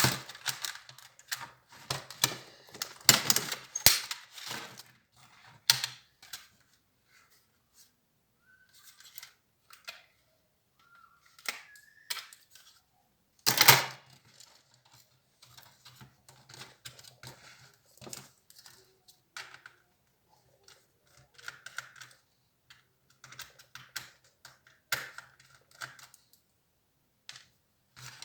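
Irregular clicks, taps and rattles of an HP Compaq 6910p laptop's plastic parts and screws being handled during disassembly, with one louder knock about fourteen seconds in and a few short squeaks.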